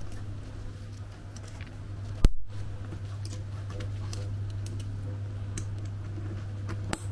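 Light clicks and taps of a cycling bag and its clips being handled, over a steady low hum that the speaker puts down to a noisy computer. One sharp click a little over two seconds in.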